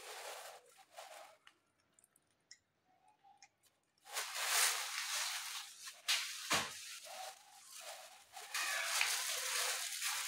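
Rustling and crinkling handling noise, faint and scattered at first, then much louder and rougher from about four seconds in, with one short break.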